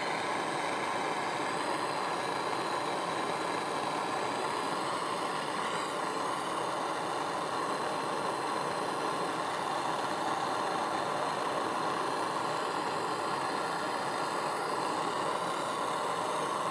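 MAPP gas hand torch burning with a steady hiss, its flame turned down low to heat an aluminum coil without burning through it.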